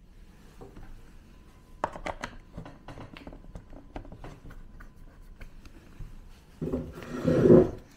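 Handling noise as a power cord is plugged into a Neat Frame display: a few sharp clicks about two seconds in, small scrapes and rubs, and a louder rustle near the end.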